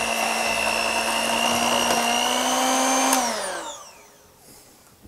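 Handheld electric mixer beating cake batter, a steady motor whine that creeps slightly up in pitch. About three seconds in it is switched off and winds down, its pitch gliding downward as it stops.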